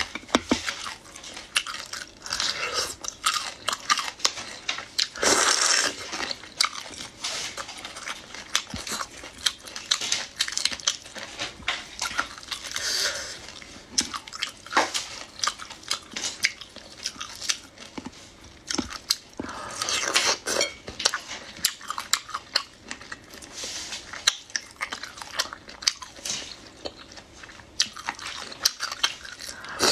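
Close-miked eating of seafood: repeated bites and wet chewing, many short mouth clicks, with a few louder, hissier patches spread through.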